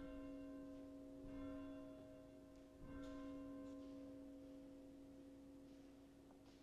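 Pipe organ playing soft, sustained chords. The chord changes about a second in and again about three seconds in, then slowly fades.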